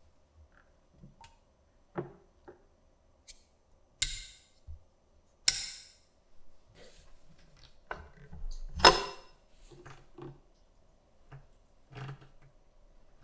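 Workshop handling sounds: a series of separate clicks, knocks and clinks, with two sharp clinks about four and five and a half seconds in and a louder clatter about nine seconds in.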